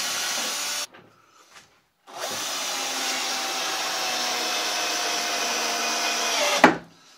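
Cordless drill-driver driving a heavy 6 mm screw into a wooden door frame. A short run stops just under a second in; after a pause the motor runs again for about four and a half seconds, its pitch sinking slowly under load, and stops with a sharp knock.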